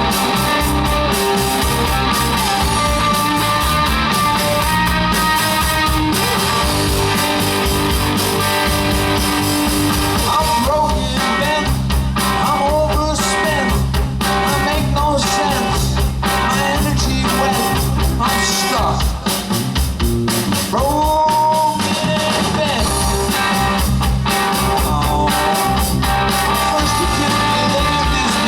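A rock-and-roll band playing live, led by electric guitar, with singing. Through the middle of the passage the playing breaks into short stop-time hits before the full band comes back in.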